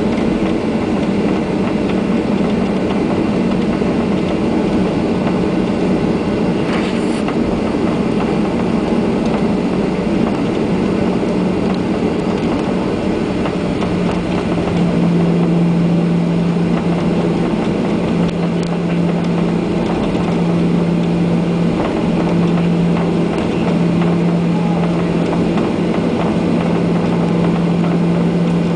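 Steady cabin noise of a Boeing 737-800 taxiing, heard from a window seat: a constant hum from its CFM56 jet engines with a droning low tone that grows stronger about halfway through.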